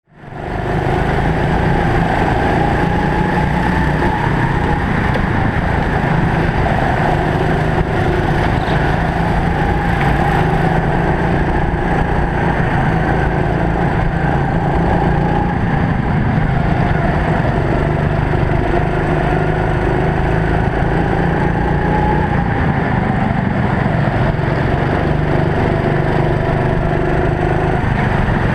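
Racing kart engine running steadily, its pitch wavering a little up and down, picked up by a helmet-mounted camera. It fades in quickly about half a second in.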